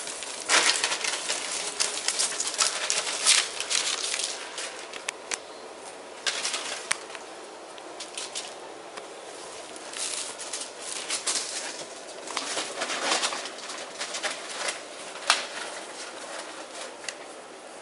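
Ferrets playing: irregular rustling and scrabbling with many scattered sharp clicks and short bursts.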